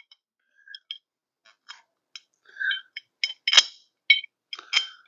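Small metal hardware clicking and clinking as bolts are handled and set against metal rack parts: a series of light, irregular clicks with a brief ring, the loudest about three and a half seconds in.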